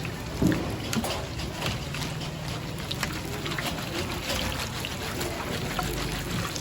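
Restaurant kitchen sounds: scattered clinks and knocks of utensils and cookware over a steady low hum, with one louder knock about half a second in.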